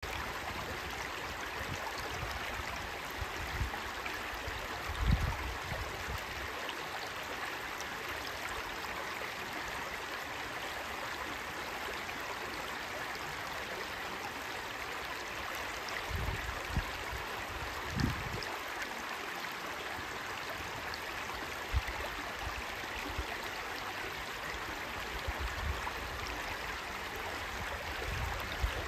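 Shallow rocky stream babbling over stones and small riffles: a steady rush of flowing water. A few brief low rumbles rise and fall over it, the strongest about five seconds in.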